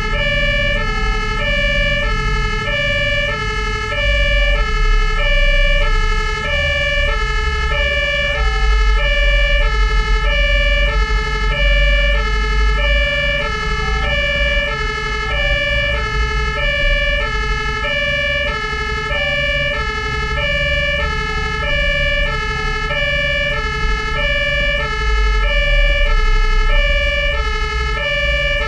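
German fire engine's two-tone horn (Martinhorn) sounding continuously, its high and low tones alternating about every 0.6 s. Heard from on board the truck, over the low rumble of its engine under way.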